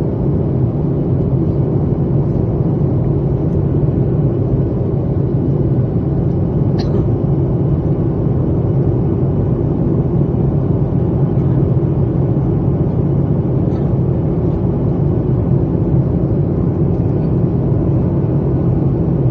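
Steady jet airliner cabin noise in flight: the low rumble of the engines and airflow heard from a window seat.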